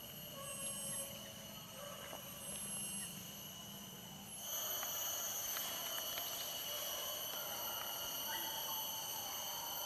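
Forest insects buzzing steadily in several high, unchanging pitches, growing louder about four seconds in.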